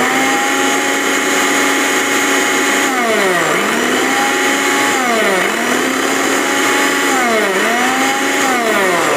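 Zunvolt 750 W mixer grinder running with its small stainless steel jar, a steady high motor tone. Its speed drops and climbs back about three times, at about three and a half, five and a half, and seven and a half seconds in.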